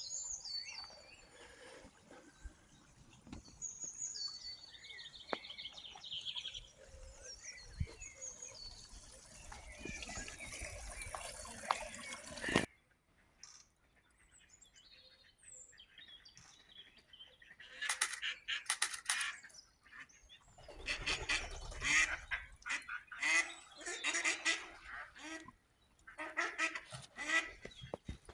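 Small birds singing in quick high chirping phrases over a steady outdoor hiss, cut off abruptly about twelve seconds in. After a short lull, a flock of geese honks in repeated loud bursts.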